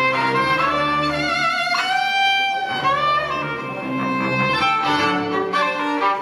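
Violin and cello playing together live, bowing long held notes.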